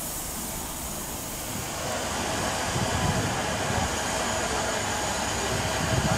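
Steam hissing out of the cylinder drain cocks of class 50 steam locomotive 50 3552-2, a steady hiss that grows louder about two seconds in, with an uneven low rumble underneath.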